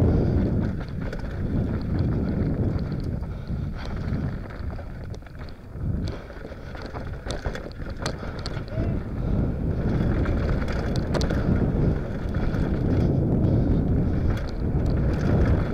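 Mountain bike descending a dirt trail at speed, heard from a helmet camera: wind rumbling on the microphone over tyre noise on the dirt, with many scattered clicks and rattles from the bike and trail debris. The rumble eases briefly about five seconds in, then builds again.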